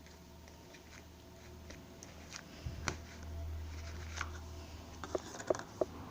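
Slime being squeezed and worked by hand: scattered small clicks and crackles, then a few sharp pops a little before the end.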